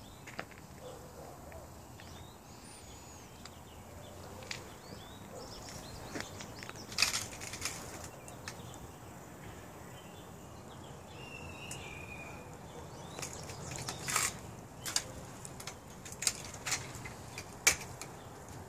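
Footsteps and handling noise from someone walking on concrete with a handheld camera: irregular sharp clicks and scuffs over quiet outdoor air, the loudest about seven, fourteen and eighteen seconds in. A faint short chirp sounds around twelve seconds in.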